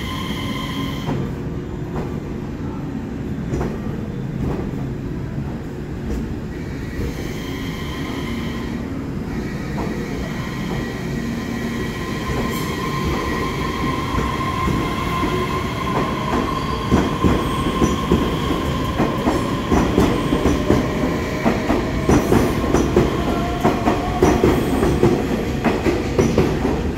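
Taiwan Railway EMU3000 electric multiple unit (twelve-car set EMU3021) pulling out of the station and accelerating past: a steady electric whine with a second tone slowly rising in pitch as it speeds up. From a little past halfway, wheel clicks over the rail joints grow quicker and louder.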